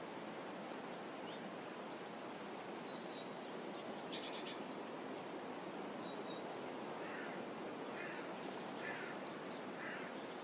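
Birds calling over a steady background hiss from the water and open air. Thin, high chirps are scattered throughout, with a quick rattling call about four seconds in. In the second half come four rougher calls about a second apart.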